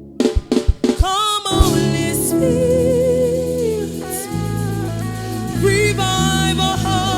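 Music with singing: a few sharp drum hits in the first second and a half, then sustained chords over a steady bass line with a wavering, vibrato melody on top.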